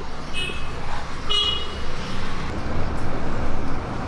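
Steady low rumble of a motor vehicle, with two short horn toots about a second apart near the start.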